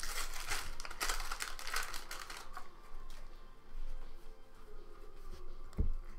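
Trading cards being handled on a table: irregular rustling and crinkling with soft clicks as cards are picked up and set down, busiest in the first two seconds. Faint background music plays underneath.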